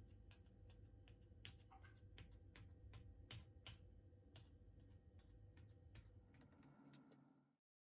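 Metal fork pricking raw pizza dough in a steel plate: faint, irregular light clicks of the tines, several a second, cutting off suddenly near the end.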